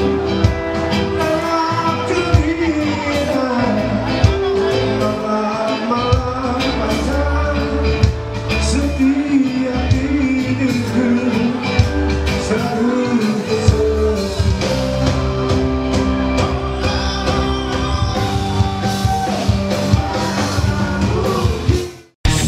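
A rock song with sung vocals over drums and guitar; it cuts off abruptly near the end, and loud electric guitar starts right after.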